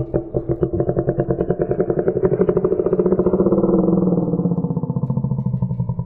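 Reconstructed Ceratosaurus call: a long, low call made of a rapid, even run of pulses that sinks slightly in pitch toward the end.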